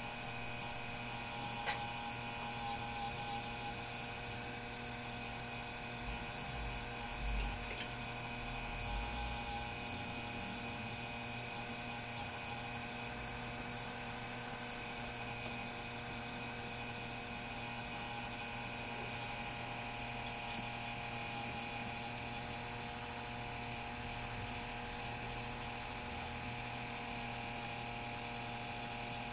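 A model chairlift running steadily, its small electric drive and pulleys giving a constant whine with several steady pitches. There is a single click about two seconds in and a few low thumps around seven to nine seconds.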